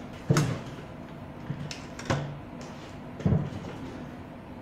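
An analog multimeter and its test leads being handled and set down on the table: a few separate knocks, the loudest about a third of a second in and others about two and three seconds in.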